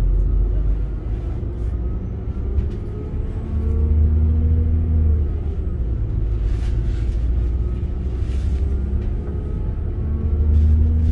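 Northern Class 195 diesel multiple unit's underfloor diesel engine and transmission rumbling under power, heard from inside the passenger saloon as the train pulls away from a station and picks up speed. A low drone with engine tones that shift; it grows louder about three and a half seconds in and again near the end.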